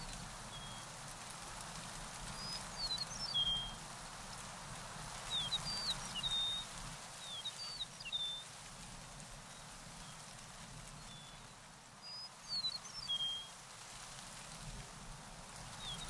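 A songbird singing short phrases of quick, high chirps and slurred notes every few seconds, over a steady outdoor background hiss.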